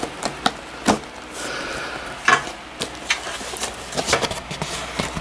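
A cardboard mailing box being cut and torn open by hand: irregular crackles, scrapes and sharp snaps of cardboard, with a stretch of rustling scrape a little past a second in.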